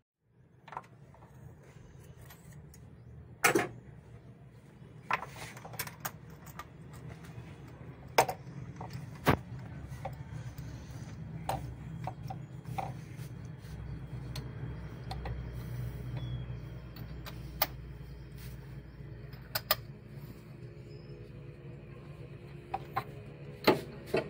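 Hand tools clicking and knocking against metal in an engine bay, a dozen or so separate sharp strikes, over a steady low hum.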